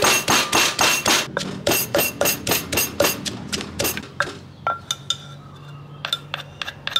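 A wooden pestle pounding chillies and garlic in a clay mortar, in fast regular strikes about four to five a second. After about four seconds the pounding gives way to scattered knocks and clinks of a metal spoon scraping inside the mortar.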